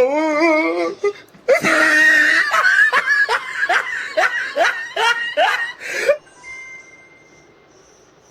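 A person laughing loudly in a quick run of short bursts, about two a second, opening with a loud rough cry and breaking off suddenly about six seconds in; a wavering voiced sound comes just before it.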